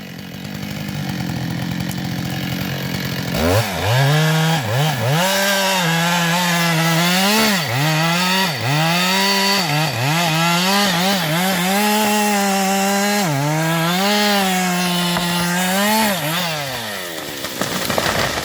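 Two-stroke chainsaw idling, then opened up to full throttle about three and a half seconds in and held high, its revs dipping briefly and recovering again and again, before easing back toward idle near the end.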